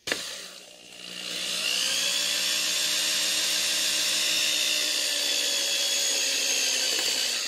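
Handheld electric drill: a sharp click at the start, then the motor spins up over about a second and runs at a steady speed with an even whine, winding down near the end.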